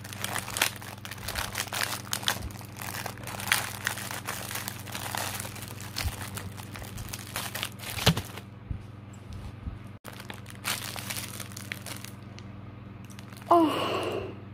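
Close-up eating sounds: a clear plastic cake tray crinkling as an iced pastry slice is bitten and chewed, with wet mouth noises. The crackling is busiest for the first eight seconds and then thins out. A short voiced sound comes near the end.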